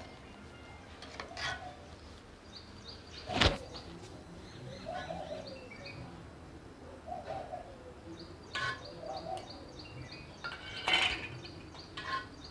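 Steel spoons clinking now and then against steel bowls while batter is scooped out, about five clinks with the loudest about three and a half seconds in, over small birds chirping in the background.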